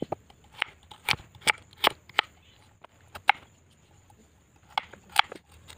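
Kitchen knife chopping carrots on a wooden cutting board: sharp knocks at an irregular pace, about ten in all, with a pause of a second or so near the middle.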